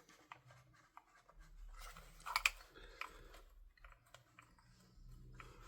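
Faint scraping and scattered small clicks of metal rifle parts handled and wiggled by hand, as a friction-held part is worked loose from an airsoft upper receiver; a slightly louder cluster of clicks comes about halfway through.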